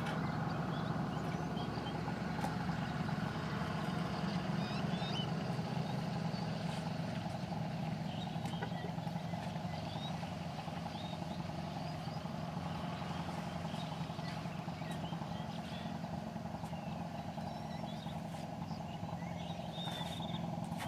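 An engine running steadily at an even speed, with faint short chirps now and then above it.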